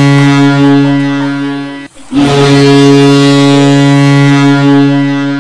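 Hockey goal horn sounding a goal: a long, loud, deep horn blast, a short break about two seconds in, then a second long blast.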